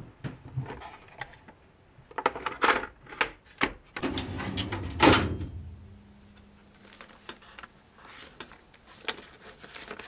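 Black metal filing cabinet drawer being handled and pulled open: scrapes and clicks, then a loud metal clunk about five seconds in. A few light clicks follow near the end as the hanging file folders inside are handled.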